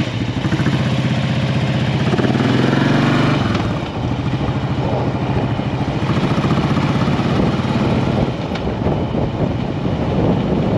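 Motorcycle engine pulling away: it revs up, drops briefly at a gear change about four seconds in, then runs steadily at road speed with a rush of wind over the microphone.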